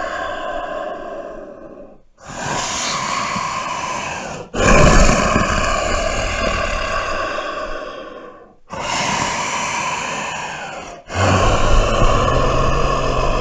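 Creature sound effects: a run of breathy, hissing monster roars and growls, one after another. Each starts suddenly and fades over two to four seconds, with four new ones starting after the first fades.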